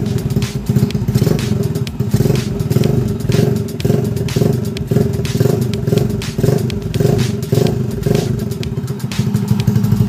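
Honda Wave 100's small single-cylinder four-stroke engine, fitted with a TMX155 carburetor, running steadily with a slight rise and fall about twice a second, on its first start-up test after the trail-bike conversion.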